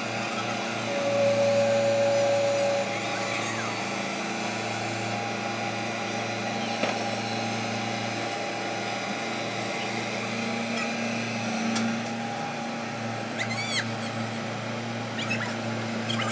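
JCB tracked excavator's diesel engine running steadily, with a louder steady whine about a second in that lasts about two seconds. A few short high cries sound near the end.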